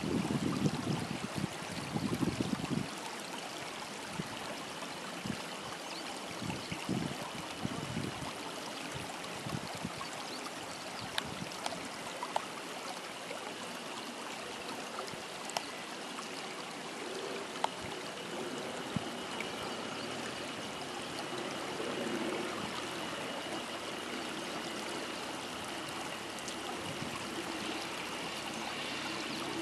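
Steady rush of running water with frogs calling and small birds chirping now and then. Wind buffets the microphone for the first few seconds.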